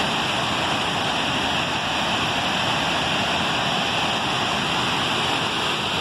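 Loud, steady rush of a waterfall and broad whitewater rapids, water pouring over rock ledges without a break.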